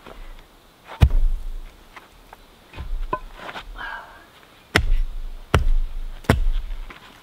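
Hard knocks from laying a concrete paver in dirt: one sharp knock about a second in as the paver goes down, then three evenly spaced axe strikes near the end, a little under a second apart. A brief gritty scrape sits between them.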